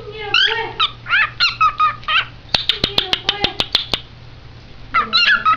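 Cockatiel chattering in short, speech-like warbled whistles that glide up and down, with a quick run of sharp clicks about halfway through.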